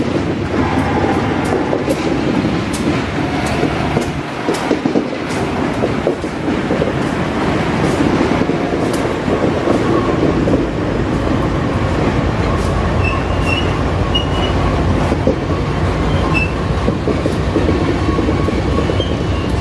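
Multiple-unit diesel-electric freight locomotives passing close by, engines running under the rumble of the wheels. Sharp wheel clicks over the rail come at uneven intervals throughout, and the low rumble grows heavier about halfway through.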